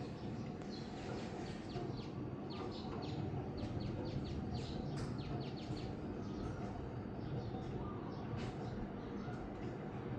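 SMC 56-inch industrial ceiling fan running with a steady whirring drone, while birds chirp in quick, irregular runs of short falling notes.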